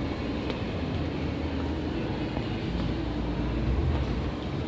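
Indoor shopping mall ambience: a steady low rumble under a general hum of the space, with no distinct events.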